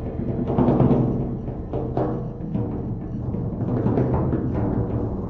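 Felt mallets striking vintage drums, including large calfskin-headed marching bass drums and snares, in an irregular free rhythm. Each stroke is followed by a low booming ring, and the ring carries on between hits.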